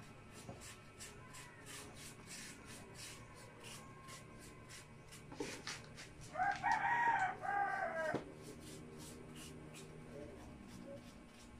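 A rooster crows once, a call of about two seconds starting about six seconds in. Behind it are faint quick ticks, about three a second.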